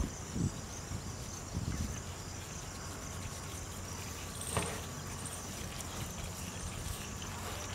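Faint outdoor background with insects buzzing steadily, and one short click about four and a half seconds in.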